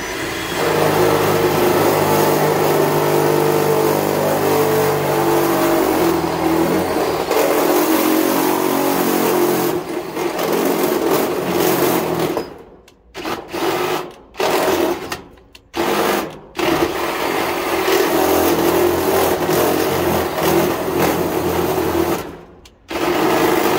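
Cordless drill running a step bit through the sheet-metal panel of an air-conditioner condenser, enlarging a hole to 3/4 inch; the motor runs hard with the bit grinding into the steel. In the middle the drill stops and restarts in several short bursts, then runs steadily again, with one brief pause near the end.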